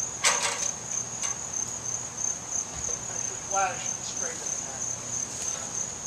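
Insects chirping in a steady, high-pitched, evenly pulsing trill. A quick clatter of knocks comes just after the start, with one more about a second in.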